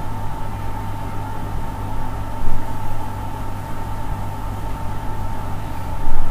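Steady low hum and hiss with a thin, steady whine above it, and two brief louder bumps, one about two and a half seconds in and one near the end.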